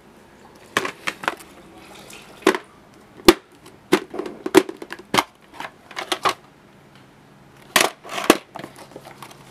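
Plastic VHS clamshell cases and a videocassette being handled: an irregular string of sharp plastic clicks and clacks as the cases are gripped, opened and set down.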